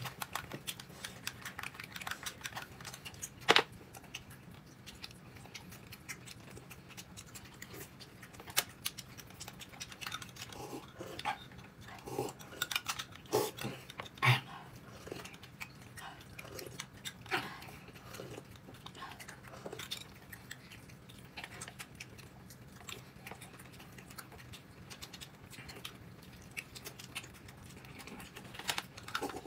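Someone eating: chewing and mouth noises with scattered clicks and knocks of utensils and dishes, irregular throughout. The sharpest knocks come about three and a half seconds in and again about fourteen seconds in.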